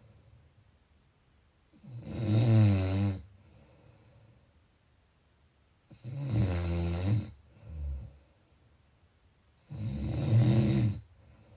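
Snoring: three loud, low-pitched snores about four seconds apart, each lasting a bit over a second, with a shorter, fainter snore straight after the second.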